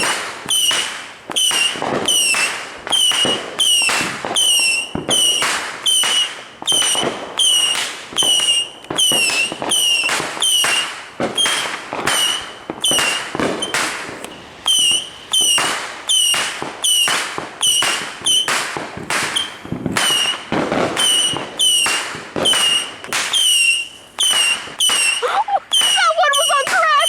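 Saturn missile battery firing its small whistling rockets one after another, about two a second. Each shot is a sharp pop with a short high whistle that dips slightly in pitch.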